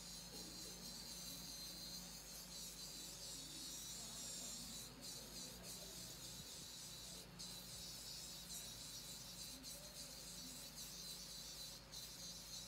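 Faint steady high-pitched hiss over a low electrical hum, with no distinct sounds.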